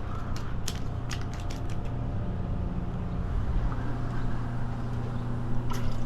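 A steady low motor hum with a few sharp clicks over it, several close together near the start and one more near the end.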